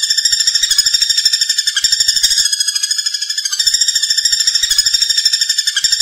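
Common flameback woodpecker (pelatuk bawang) calling: a loud, continuous, fast rattling trill of high notes, about ten a second.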